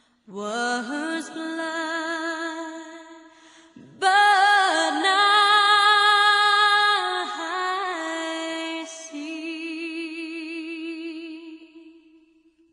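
Slow, lullaby-like song with a woman's voice singing long held notes with vibrato. It grows louder about a third of the way in and fades away near the end.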